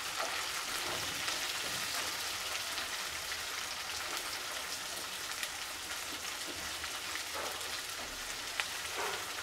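Sliced onions frying in hot mustard oil in a stainless steel kadhai: a steady sizzle, with a few light scrapes and taps of a wooden spatula stirring them as they fry toward brown.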